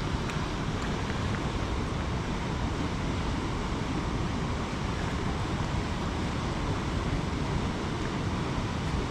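Steady rushing of water pouring through a spillway, an even noise with no pitch or rhythm.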